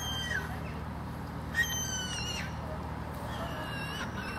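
Gulls calling: three high, drawn-out calls that slide down in pitch, the middle one the loudest, over a low steady hum.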